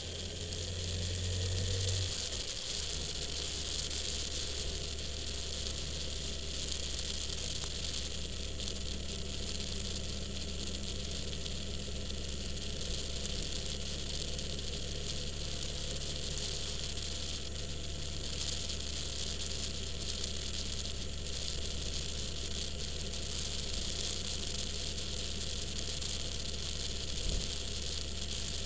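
Car driving along a town street, heard from inside the cabin: a steady low engine hum under constant tyre and road hiss. The engine note drops about two seconds in, and there is a brief knock near the end.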